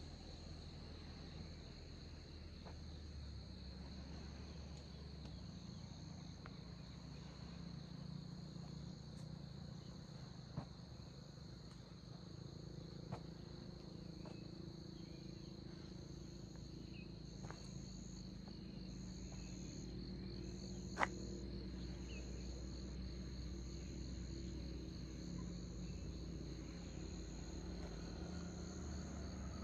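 Insects trilling steadily in the fields: one continuous high trill and a higher one that pulses on and off. A low rumble runs underneath, with a few sharp clicks, the loudest about two-thirds of the way through.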